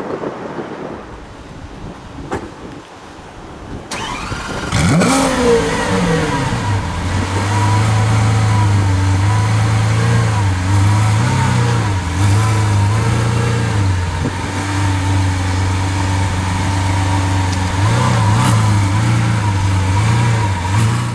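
Lamborghini Aventador SV Roadster's 6.5-litre V12 starting up about four seconds in: it catches with a quick flare of revs that rises and falls, then settles into a steady idle.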